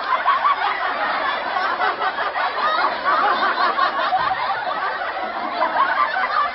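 Laugh track: many people laughing together at once, cutting off abruptly near the end.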